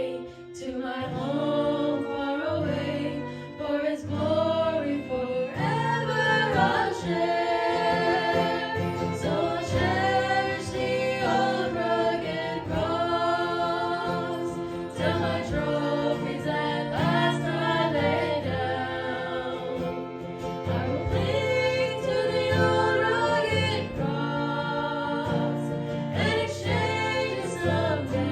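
A small group of singers sings a slow hymn in held notes, with instrumental accompaniment underneath.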